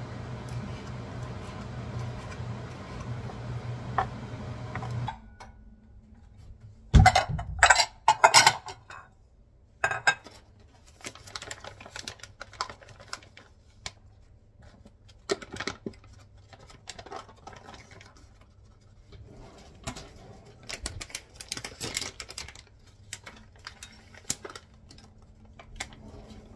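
A steady appliance hum that cuts off suddenly about five seconds in. Then kitchen clatter: a few loud clanks of pots and dishes, followed by scattered clicks and taps of utensils and dishware.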